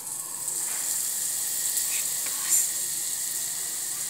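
Butter sizzling in a hot enamel pot on a gas burner: a steady hiss that starts suddenly as the butter goes in, with one short knock about two and a half seconds in.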